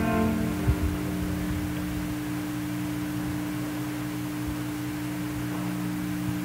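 A steady low electrical hum with a faint hiss on the audio feed, holding two even tones. The last of the string music dies away at the very start, and there is a soft knock under a second in.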